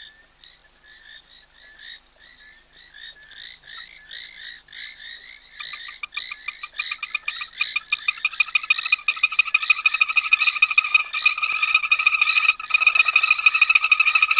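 A chorus of frogs calling, with short repeated calls about three a second. About six seconds in, a faster, denser pulsing call joins them, and the chorus swells steadily louder.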